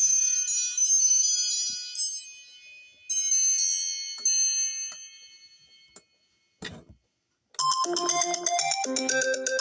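iPhone ringtones playing one after another. A bright, high chiming ringtone dies away over the first few seconds, and a brief knock sounds just past the middle. After a second of silence a new ringtone starts, a busy synth melody over repeating bass notes.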